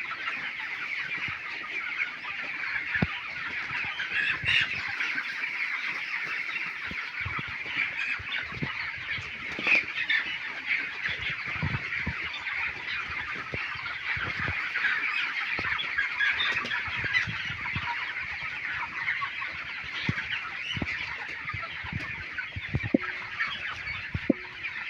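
A flock of chickens calling continuously, many overlapping chirps and clucks at once, with scattered short knocks underneath.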